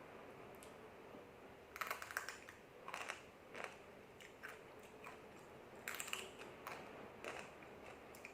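Crisp crunching of dry fried mi lidi stick noodles being bitten and chewed close to the microphone, in irregular crackly clusters about every second.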